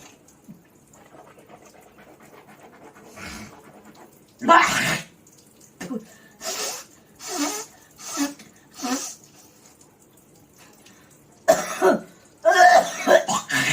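A person hawking and clearing their throat during a morning toothbrushing. There is a loud, harsh hawk about four and a half seconds in, then a string of five shorter coughing hawks, then several more loud hawks near the end.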